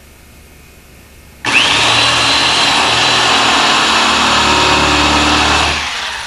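Handheld power drill starting about a second and a half in with a whine that rises in pitch and settles, running steadily with a loud hiss for about four seconds, then winding down, as it works a bit into the metal strip screwed to the wooden hull.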